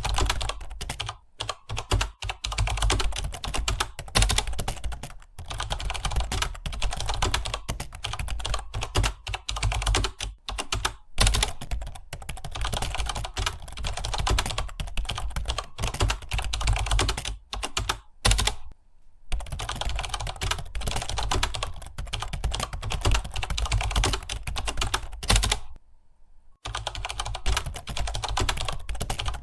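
Fast, continuous typing on a computer keyboard, keys clicking in quick runs, with two brief pauses, one about two-thirds of the way through and one near the end.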